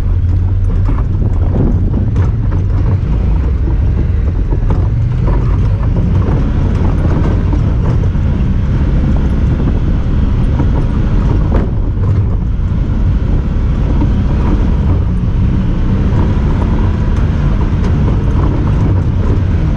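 Honda Talon 1000R side-by-side's parallel-twin engine running as it drives, its pitch drifting up and down with the throttle, with scattered short clicks and rattles.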